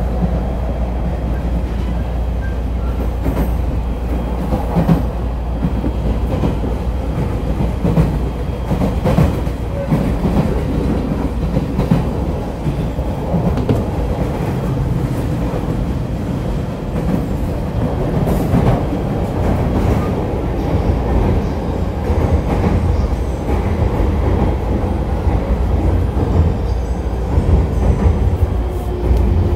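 Running sound inside a JR Shonan-Shinjuku Line electric commuter train at speed: a steady low rumble of wheels on rail with scattered clicks and clacks over rail joints.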